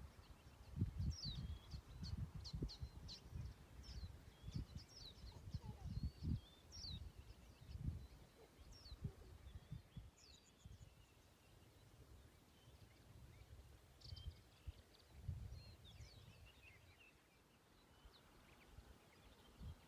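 Small birds calling with short high chirps and quick down-slurred whistles, over irregular low rumbling gusts of wind on the microphone that ease off in the second half.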